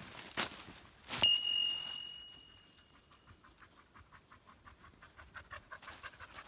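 Footsteps crunching in dry fallen leaves, and about a second in a small bell rings once and fades. Then a Hokkaido dog pants quickly and evenly, louder toward the end.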